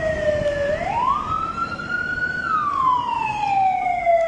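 Fire engine siren wailing. Its single tone falls, sweeps up quickly about a second in, holds high for about a second, then slowly falls again.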